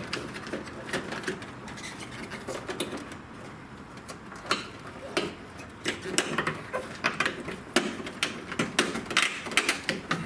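Irregular clicking and tapping of hard plastic as a 2007 Honda Civic's license-plate light cover is wiggled and worked loose from behind the plastic trim. The clicks come thicker over the second half.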